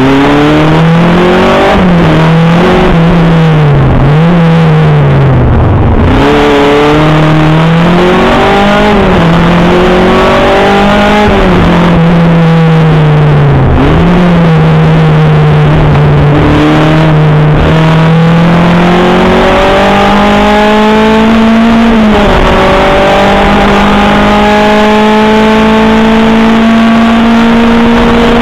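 Škoda Felicia 1.4-litre four-cylinder engine heard from inside the car, driven hard: the revs climb and fall again every few seconds with sudden drops at lifts and gear changes, then a long, slowly rising pull near the end.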